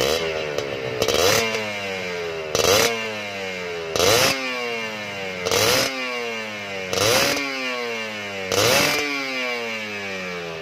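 Kawasaki Ninja 150 R single-cylinder two-stroke engine revved through its gutted stock muffler. There are about seven quick throttle blips roughly every second and a half, each shooting up and then falling back slowly.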